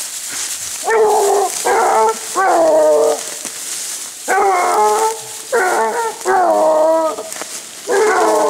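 A pack of Basset bleu hounds baying while hunting: seven long, drawn-out cries, each dropping in pitch at its end, coming in two runs of three about a second and a half apart, with one more near the end.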